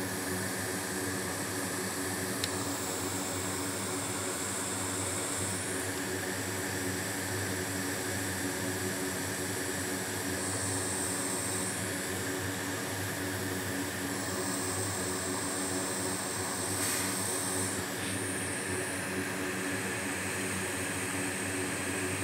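Hot air rework station running at the bench: a steady rush of air and fan whir over a low hum.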